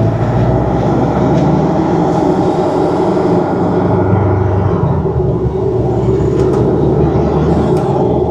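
Porsche 718 Cayman's turbocharged flat-four engine running steadily, with the intake sound of an aftermarket RaggDoll Motorsports turbo inlet pipe.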